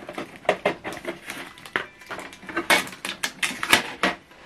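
Blue packing material being pulled out of the front of an HP DeskJet 2721e inkjet printer: irregular crinkling and rustling with sharp plastic clicks and taps.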